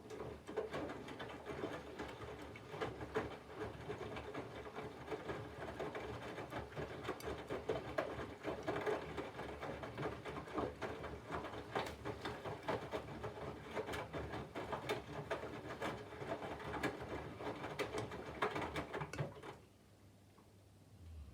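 Candy GVF4 front-loading washing machine's drum turning: a steady motor hum with irregular patter and knocks of wet laundry tumbling inside, stopping suddenly near the end. This is a drum rotation during the water-heating phase of the 'Colours 40°' programme.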